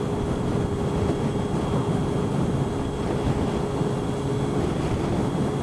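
Motorcycle fitted with a new aftermarket exhaust cruising at a steady speed, its engine running evenly under road and wind noise.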